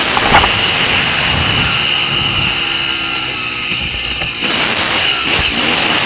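Dirt bike engine running while riding a bumpy forest trail, heard through heavy wind noise on a helmet-mounted camera, with knocks from the rough ground. The wind eases a little past the middle, letting the engine note through, then comes back suddenly.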